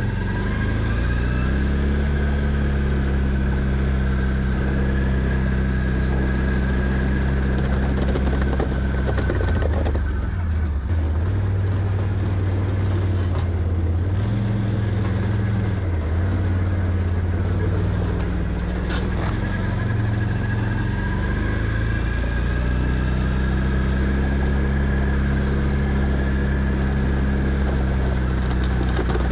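Can-Am Outlander 650 ATV's V-twin engine running under load while plowing snow, its engine speed rising and falling, with a dip about ten seconds in and again around sixteen seconds. A steady high whine runs along with the engine for most of the time.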